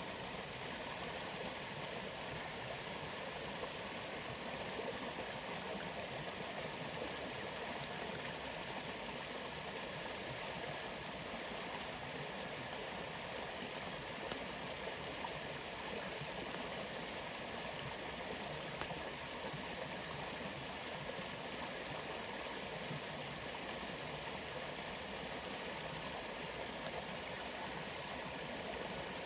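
Waterfall and flowing stream water rushing steadily, with no change through the stretch.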